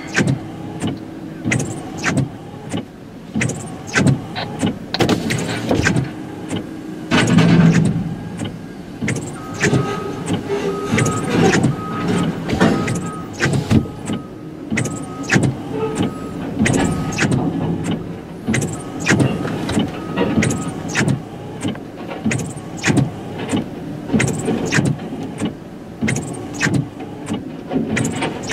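Norfolk Southern freight train of gondola cars rolling past a grade crossing, its wheels clacking and knocking irregularly over the rail joints and crossing, heard from inside a car.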